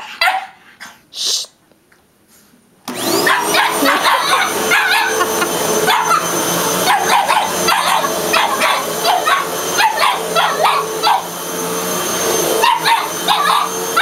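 Vacuum cleaner switching on about three seconds in and running steadily, with a Boston terrier barking at it over the motor noise; a few short barks come before the vacuum starts.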